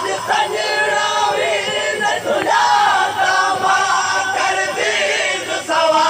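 Crowd of men loudly chanting a noha, a Shia mourning lament, together, many voices overlapping as the melody rises and falls.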